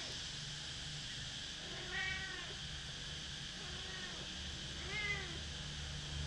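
A cat meowing: short calls that rise and fall in pitch, two clear ones about two and five seconds in and a fainter one near four seconds.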